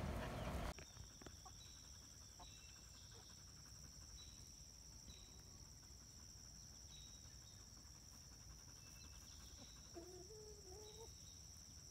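Backyard chickens clucking softly, with one drawn-out, wavering hen call about ten seconds in, over a steady high-pitched whine. A loud burst of noise fills the very start and cuts off abruptly under a second in.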